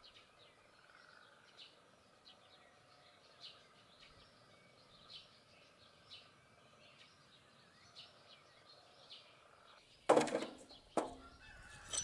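Small birds chirping in short calls about every second, with distant farmyard fowl. About ten seconds in come two loud wooden knocks a second apart: a hatchet chopping firewood.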